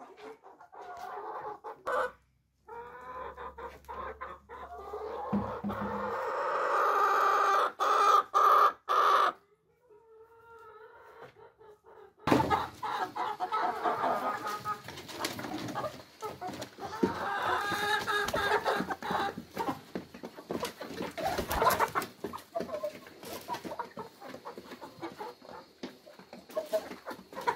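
A flock of chickens clucking and calling as they crowd a feeding trough, with a long drawn-out call a few seconds in. The sound drops out suddenly about a third of the way in and comes back with busy clucking and many small clicks.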